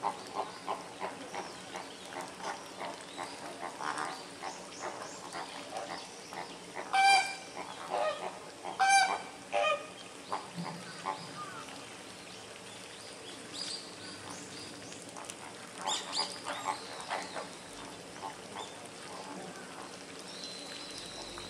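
A flock of flamingos calling: a constant chatter of short calls from many birds, with two loud calls about seven and nine seconds in, and a quieter spell midway.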